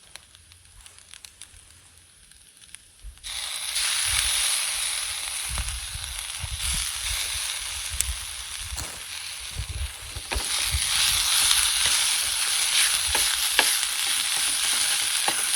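Food sizzling and frying in a pan, with now and then a sharp pop. It is quiet for about the first three seconds, then the sizzling comes in abruptly and carries on.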